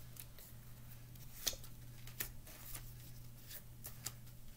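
Tarot cards being handled and laid onto a tabletop: scattered light clicks and slaps of card on card, one sharper snap about a second and a half in, over a low steady hum.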